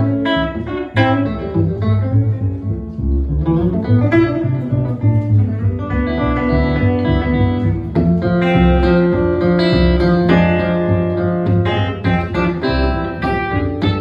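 Hollow-body electric guitar and pizzicato upright double bass playing an instrumental passage live: picked guitar notes and chords ringing over plucked bass notes.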